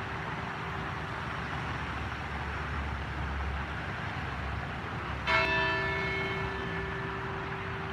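A bell struck once about five seconds in, ringing out clearly and fading over a couple of seconds. Behind it is steady street traffic rumble with a constant hum.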